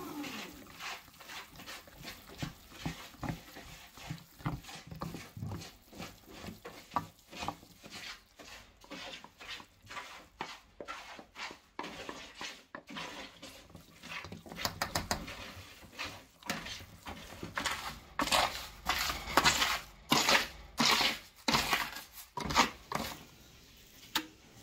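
Wooden spoon mixing minced meat in a stainless steel bowl, knocking and scraping against the metal in quick, irregular clicks that grow louder near the end.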